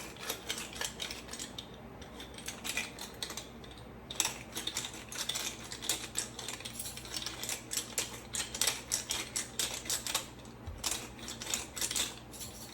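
Hand pepper grinder being twisted, grinding peppercorns with rapid dry clicking and crunching in uneven runs.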